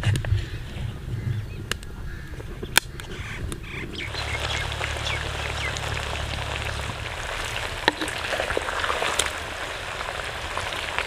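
A wooden spoon clicks and scrapes against a clay pot while raw moringa root sticks are stirred. About four seconds in, a steady sizzle starts: the sticks frying in hot mustard oil.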